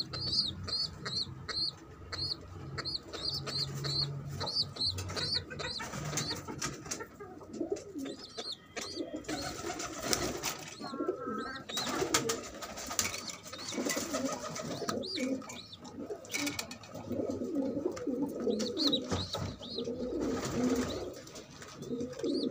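Domestic pigeons at a nest with a squab. High-pitched cheeping repeats about three times a second for the first six seconds. After that come rustling and scraping with low cooing.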